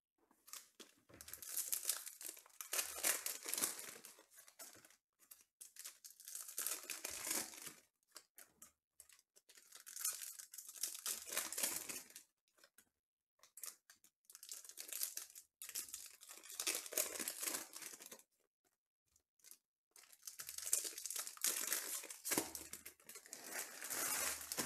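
Foil trading-card packs being torn open and their wrappers crinkled, one pack after another: about five spells of tearing and crackling, each a few seconds long, with short pauses between them.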